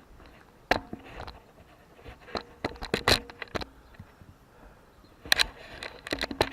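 Irregular knocks and clinks, a few with a short metallic ring, bunched together about three seconds in and again near the end.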